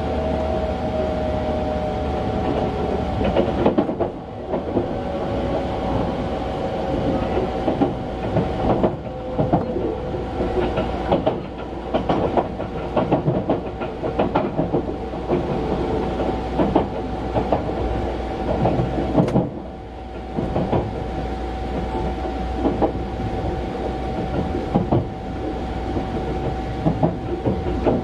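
285 series sleeper train running, heard from inside a compartment: a steady rumble with dense, irregular clacks of the wheels over rail joints and points. A thin whine runs along with it, sliding slowly down in pitch over the first ten seconds or so.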